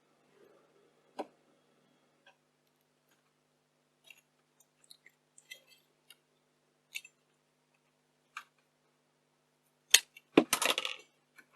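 Small metal parts and a hand tool clicking and tapping as the shielding cover and cans are prised off a camcorder's circuit board. Scattered light clicks give way to a sharp click about ten seconds in, followed by a brief rattling clatter.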